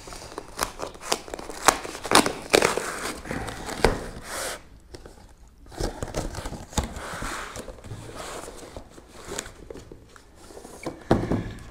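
Cardboard book-mailer box being torn open by hand: ripping cardboard and crinkling paper, with sharp clicks and knocks of the box being handled, in irregular spells.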